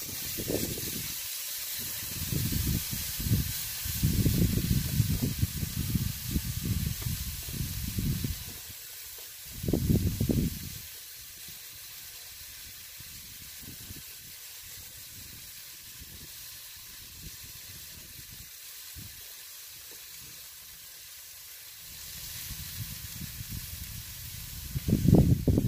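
Beef inside skirt steak sizzling over charcoal on a grill grate, just turned onto its second side; a steady hiss. Irregular low rumbles come and go over it, through the first eight seconds, briefly about ten seconds in, and again near the end.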